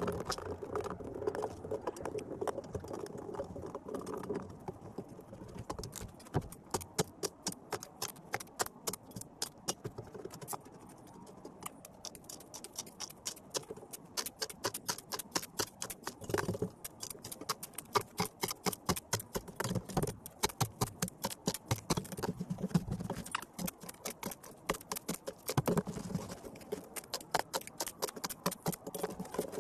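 Loose fill being packed under a culvert pipe with an axe and by stomping: a quick, irregular run of crisp taps and crunches in the dirt, several a second, with a few heavier thuds.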